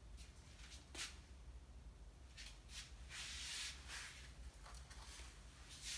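Faint rustling of a leather jacket and hair as the wearer turns and moves: a few short rustles, and one longer brushing sound about three seconds in.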